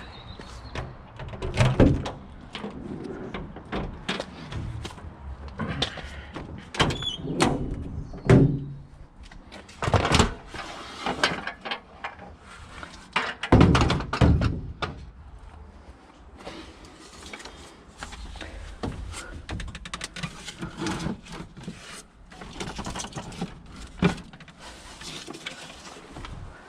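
A run of irregular knocks and thuds from objects being handled and set down, the loudest about 2, 8, 10 and 14 seconds in.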